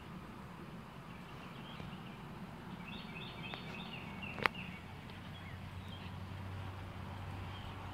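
Birds chirping over a steady low background hum, with one sharp click about halfway through.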